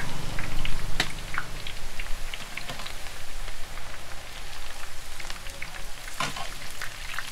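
Sev (gram-flour noodles) deep-frying in hot oil in a large iron kadhai over a wood fire: a steady crackling sizzle full of small pops as the sev is turned with a slotted spoon. A sharp knock comes about a second in and another near six seconds in.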